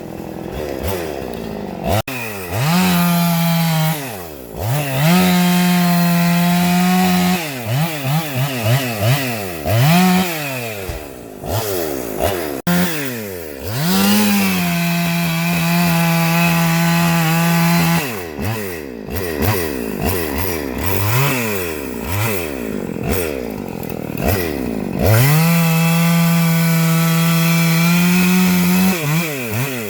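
Husqvarna two-stroke chainsaw running at full throttle in long steady stretches of several seconds, dropping back toward idle and revving up again between them, as when cutting through wood.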